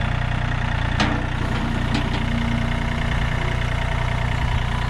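Compact tractor's diesel engine idling steadily, with a couple of light clicks about one and two seconds in.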